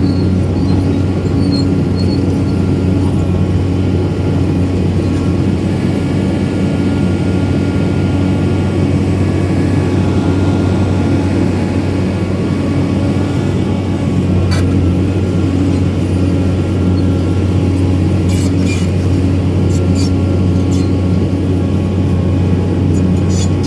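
Excavator's diesel engine running steadily with a constant low hum, with a few short clicks or knocks in the second half.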